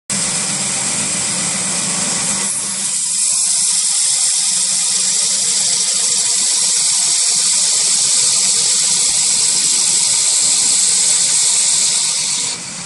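KPSh-80 round-sanding machine running, its abrasive belt grinding a wooden handle fed through it: a loud, steady hiss over a motor hum. The hiss gets louder about two and a half seconds in and drops off near the end.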